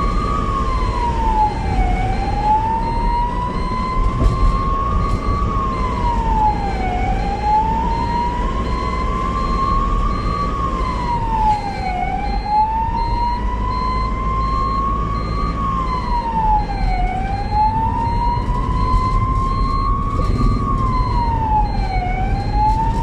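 Ambulance siren wailing: the pitch climbs slowly for about four seconds, then drops quickly, and the cycle repeats about every five seconds. Underneath is a steady low road rumble.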